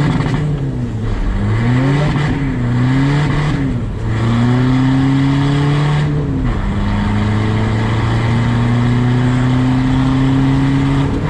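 VW Caddy van, remapped and fitted with an aftermarket exhaust, accelerating hard through the gears. The engine note climbs in each gear and drops at every upshift, with the last gear held longest as it slowly rises.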